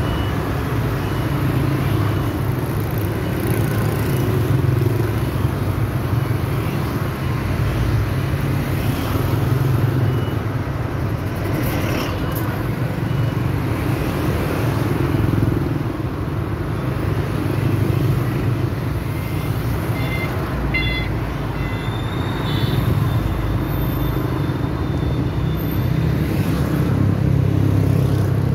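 Busy city road traffic, mostly motorbikes with some cars, passing close by in a steady, unbroken stream of engines and tyres. A few brief high-pitched tones sound about three-quarters of the way through.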